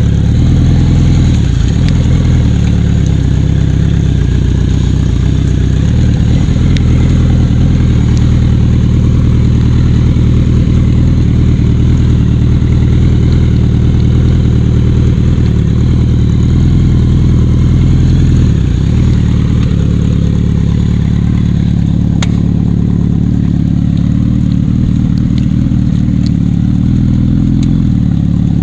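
Motorcycle engines running steadily at low road speed, with a brief drop in engine speed about two-thirds of the way in.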